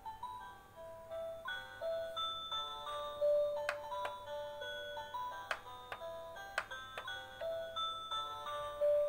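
Turtle star-projector night light playing its built-in lullaby, a simple electronic tune of single notes, with a few sharp clicks as its shell buttons are pressed partway through.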